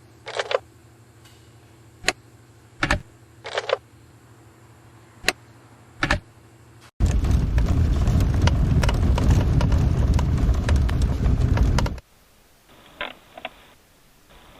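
Squeaks and clicks from the interior trim of a BMW F30-family car: a few short squeaks and sharp single clicks over a low cabin hum. In the middle come several seconds of loud rumbling road noise with rattling ticks, which stops abruptly, and then a few faint ticks.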